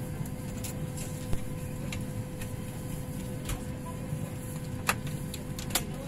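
Steady low hum of an airliner cabin with a faint steady tone, broken by several short clicks and knocks as the overhead bins and bags in them are handled; two of the sharpest come near the end as a bin is pushed shut.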